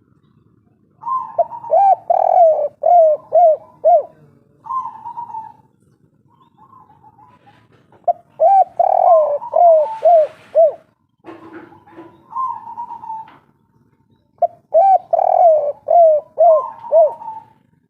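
Spotted dove (derkuku/tekukur) singing its 'kuk 3' coo three times. Each phrase is a quick run of five or six short coos ending in a longer held note.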